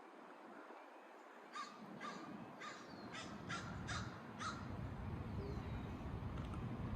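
American crow cawing: a quick run of about seven caws, starting about a second and a half in.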